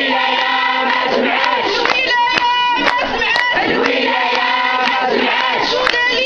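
A crowd of protesters, largely women's voices, chanting slogans in unison in a repeating rhythmic phrase, with sharp regular beats in time with it.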